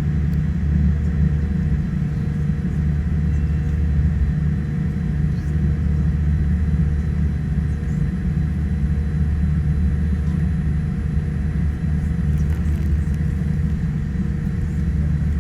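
Steady low rumble of a Boeing 787-10's engines and airflow heard from inside the passenger cabin, with a few faint steady tones above it.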